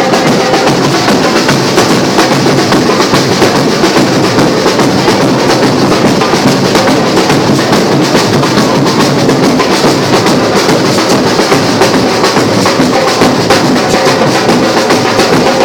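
Samba percussion group playing drums together, a dense, steady groove that keeps going without a break.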